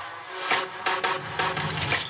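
Electronic dance music with a steady beat, its deep bass briefly dropped out.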